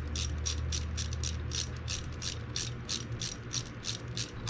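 Hand ratchet clicking steadily, about four to five clicks a second, as the ignition coil hold-down bolts are run in, over a steady low hum.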